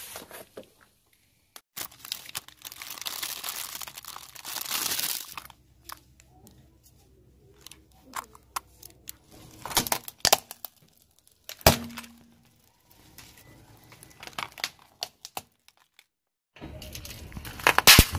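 A car tyre slowly rolling over and crushing plastic objects: bouts of crackling and crunching with sharp snaps of breaking plastic, separated by quiet gaps.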